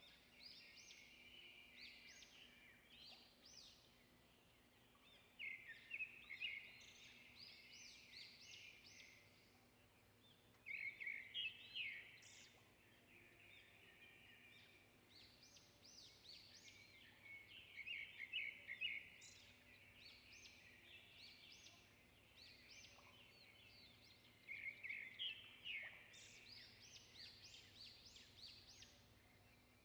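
Faint birdsong: bursts of rapid chirping phrases repeating every few seconds.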